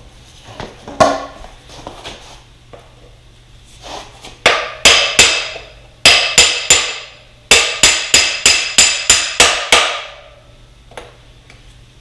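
Hammer blows on a brass punch, driving a part out of a dirt bike's chassis. They come in quick runs of sharp metallic taps, about three a second, each with a short ring.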